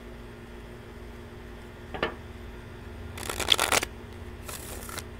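Tarot cards being shuffled by hand: a single tap about two seconds in, then two quick rushes of cards flicking against each other, the first louder. A steady low hum runs underneath.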